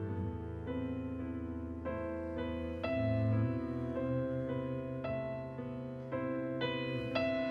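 Slow improvised piano music: chords and single notes struck about once a second and left to ring.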